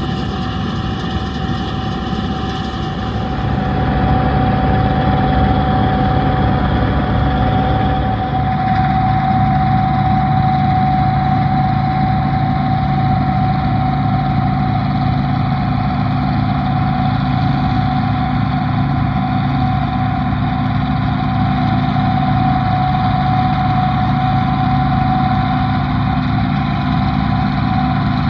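Bizon Z056 combine harvester's diesel engine running steadily, with a steady high whine over it. It gets louder and deeper about four seconds in and shifts again at about eight seconds.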